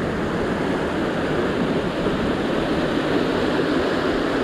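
Ocean surf washing and churning over a rock ledge: a steady, continuous rush of breaking whitewater.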